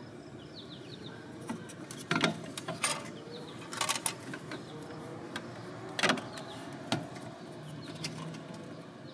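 Scattered sharp knocks and clicks, about five of them, as the larger 3-inch RV waste valve is forced up into position against its flange at an awkward angle, over a steady low background noise.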